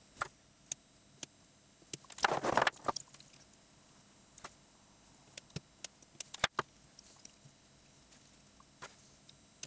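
Hands handling silicone motor wires on a carbon-fibre quadcopter frame while wire cutters snip them to length: scattered sharp clicks and ticks, with a louder rustling scrape about two seconds in.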